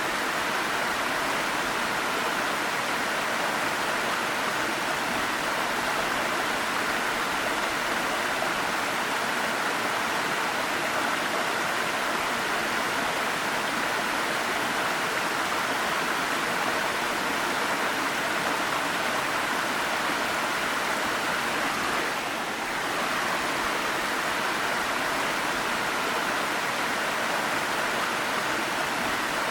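Waterfall: a steady, unbroken rush of falling water, with one brief dip in level about three-quarters of the way through.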